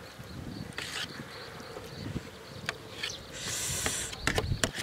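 Close-up eating sounds of rice noodles with fresh vegetables: chewing and scattered clicks, a short hissing slurp a little after three seconds, and a quick run of clicks near the end.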